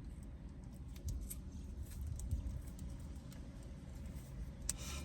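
Small crinkles and clicks of food packaging being handled, most likely mustard packets and a burger wrapper, with a short rustle near the end.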